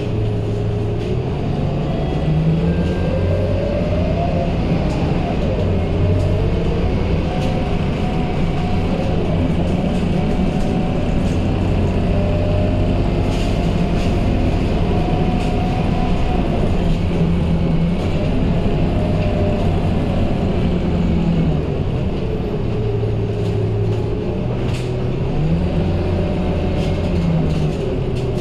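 Onboard a Scania K230UB city bus under way: the five-cylinder diesel engine's drone and a drivetrain whine rise and fall as the bus accelerates, changes gear and slows. Faint rattles of the bus interior come in now and then.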